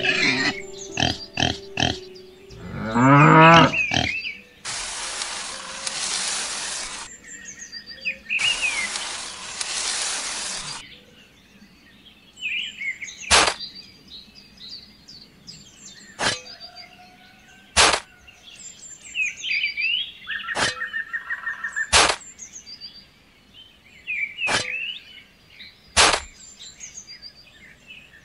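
Birds chirping, broken by sharp single clicks every couple of seconds. Near the start there is a brief animal squeal that bends up and down, followed by two long stretches of steady hiss.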